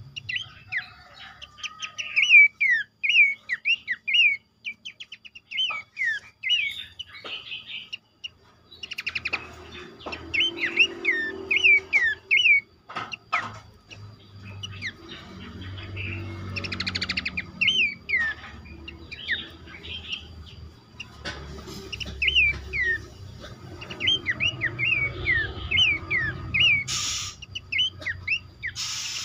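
A chorus of pelanduk semak babblers calling: quick, repeated short chirps that drop in pitch, several a second, overlapping without pause. A couple of short rustling bursts come near the end.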